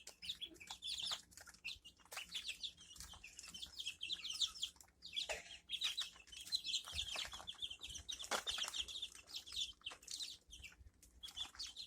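A group of young chicks peeping, many short high-pitched peeps overlapping and repeating continuously.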